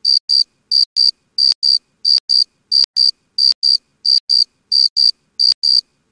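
Cricket chirping sound effect: short double chirps repeating about one and a half times a second, with dead silence between them. This is the stock "crickets" sound edited in over a cut-away clip.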